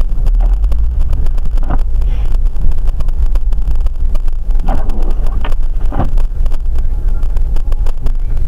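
Wind buffeting the microphone over the steady low rumble of a car, a loud, continuous deep rumble with crackling on top.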